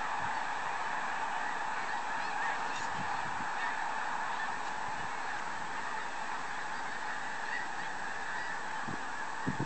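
A huge flock of snow geese calling all at once: a steady, unbroken din of countless overlapping honks. A couple of short low bumps near the end.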